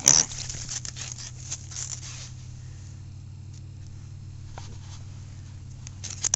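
A sharp knock at the start, then about two seconds of scratchy rustling as a hand rubs a black mini pig's bristly coat, followed by a few scattered clicks, all over a steady low hum.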